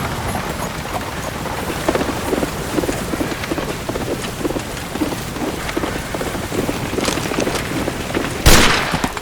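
Heavy rain pouring down steadily, with a low rumble underneath. A loud thunderclap strikes about eight and a half seconds in and fades, and the sound cuts off abruptly right after.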